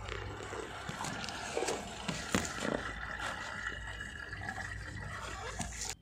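Godrej 6.2 kg top-load fully automatic washing machine filling for its third cycle, with water running and gurgling into the drum among the clothes. A few louder sloshes come about two to three seconds in, and the sound cuts off suddenly at the end.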